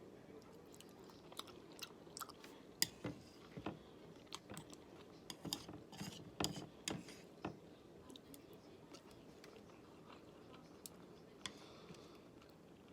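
Close-up chewing and wet mouth smacking while eating sashimi, a run of short clicks that is thickest in the first half and thins out after, with a soft breath near the end.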